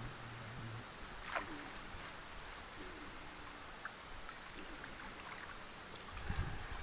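Light water splashing and steady wind noise as a hooked carp thrashes at the surface by a landing net. A brief falling squeak comes about a second and a half in, and wind buffets the microphone near the end.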